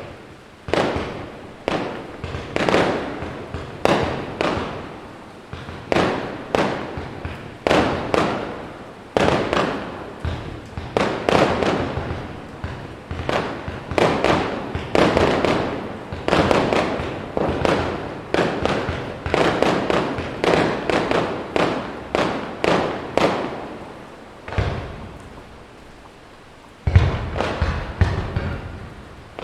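Aerial fireworks shells bursting in quick succession, about one or two bangs a second, each bang trailing off in a long echo. Near the end there is a short lull, then a louder, deeper boom.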